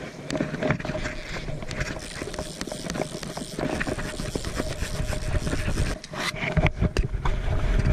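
Handling and wind noise on a chest-worn camera: a steady low rumble with frequent knocks and rustles of jacket fabric as the wearer wades and works a fly rod.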